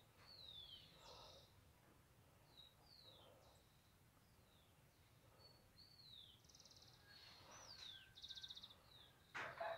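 Faint birdsong: short high whistles that slide downward, repeated at intervals, with a couple of quick buzzy trills. A brief louder rustle comes near the end.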